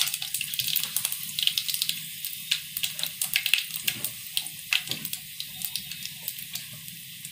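Dried red chillies and whole spices (mustard seeds, fenugreek, cumin) sizzling in hot oil in an aluminium pot, a steady hiss with many small sharp crackles scattered through it: the tempering stage of the curry.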